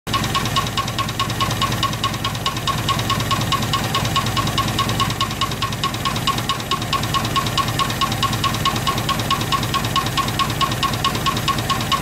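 Rover P2 engine running with the rocker cover off, a sharp knock sounding at an even beat of about five times a second over the low running noise. The knock was traced to a valve guide that had broken off and stuck to its valve.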